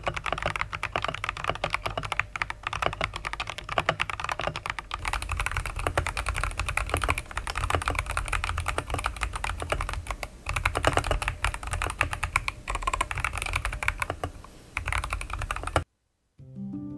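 Fast, continuous typing on a Skyloong GK75 mechanical keyboard fitted with Glacier Optical Green v3 tactile switches. About five seconds in, the sound changes from a dynamic microphone's pickup to a condenser microphone's. The typing stops about a second before the end, and after a brief gap background music begins.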